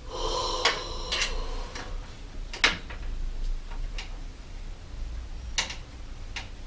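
Scattered sharp clicks and clinks of metal hand tools and bike parts being handled, about five in all, the loudest roughly two and a half seconds in. A brief metallic ring sounds in the first second.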